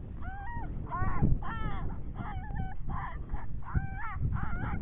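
A rapid string of coyote yips and whimpers, short pitched calls coming about two to three a second without a break.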